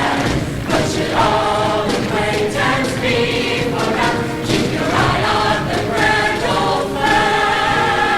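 Show choir singing in full voice over an instrumental accompaniment, with drum hits throughout.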